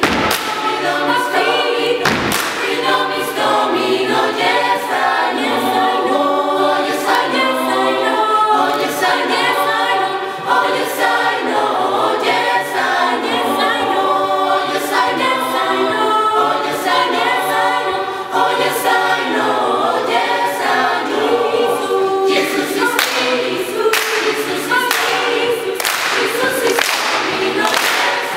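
Mixed student choir singing a cappella in several parts. Near the end the singers join in with steady hand claps over the singing.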